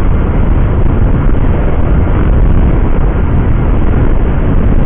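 Heavy wind noise rumbling steadily over a phone-headset microphone inside a closed-visor helmet at about 100 km/h on a scooter.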